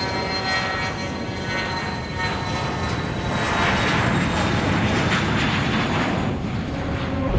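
Airliner's engines as it takes off and climbs away: a rising, rushing engine noise that builds about three seconds in and stays loud toward the end.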